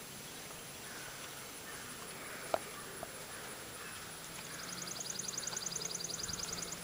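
A bird's rapid, high-pitched trill of about ten notes a second, starting about four seconds in, over faint outdoor background with a steady low hum. A single sharp click comes about two and a half seconds in.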